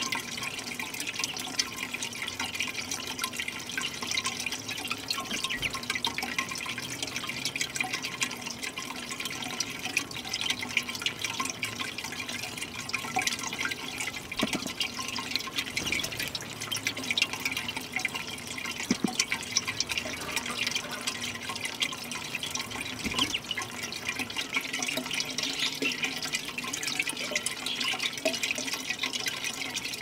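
Small ceramic garden fountain running: water welling over its top and splashing into its glazed basin, a steady trickle flecked with many small drips.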